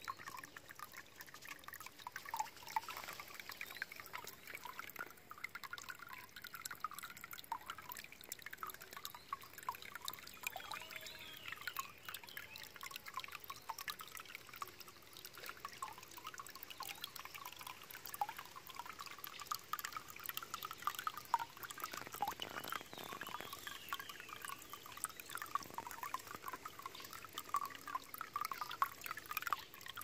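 Water from a small fountain trickling and splashing over a rusty iron fitting, a steady stream of small bubbling, plinking sounds.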